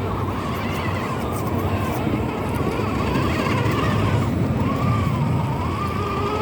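Radio-controlled model truck running: a thin motor whine that wavers up and down in pitch over a steady low rumble.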